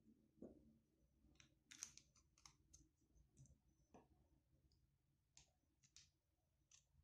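Faint, scattered clicks and light taps of small plastic-capped glass dropper bottles being handled and set down on a wooden table.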